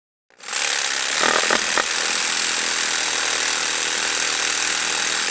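Electric jigsaw starting about a third of a second in and running steadily with a high whine, its sound shifting briefly a little over a second in.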